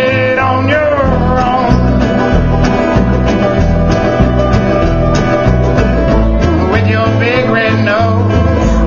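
Live bluegrass band playing: mandolin, acoustic guitar and upright bass over a steady bass line, with a man singing lead near the start and again near the end.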